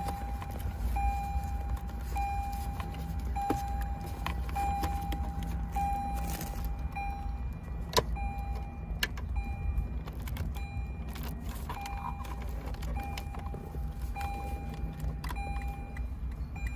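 An in-car warning chime beeping steadily, a little under two beeps a second, over a low steady hum, with scattered sharp clicks and knocks of plastic connectors and trim being handled.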